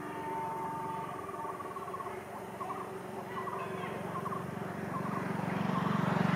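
Low rumble of an approaching WAP-7-hauled express train, growing louder over the last two seconds, with small birds chirping in short repeated calls.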